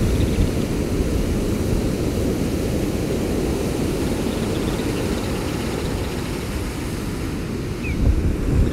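Strong storm wind buffeting the microphone in a steady low rumble, over the wash of surf breaking and running up the beach; a louder gust comes in near the end.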